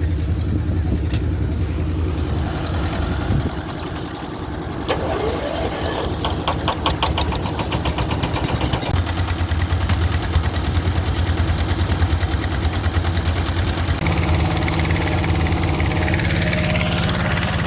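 Vehicle engine running steadily, with a rapid rattling clatter about six to eight seconds in and a shift in the engine's tone about fourteen seconds in.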